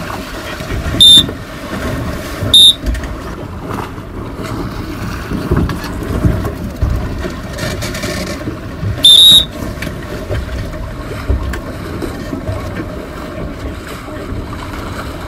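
Three shrill whistle blasts: short ones about one and two and a half seconds in, and a slightly longer one about nine seconds in. Between them runs a steady rumble of wind on the microphone.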